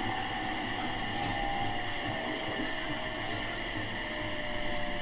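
Onboard running sound of a JR 701 series 5500-subseries electric train: a steady rumble and hum with a motor whine that slowly falls in pitch as the train slows.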